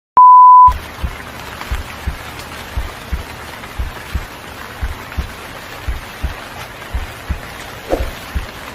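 A short, loud steady beep, then a steady rain-like hiss with a soft low thump about every three quarters of a second.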